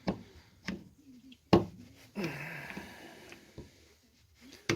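Sharp clicks and knocks of a flat screwdriver against the plastic motor housing while prying the second carbon-brush holder out of an electric lawnmower motor, the loudest knock about one and a half seconds in, followed by a short scraping rasp. The holder is stuck fast, clogged with dirt and grass.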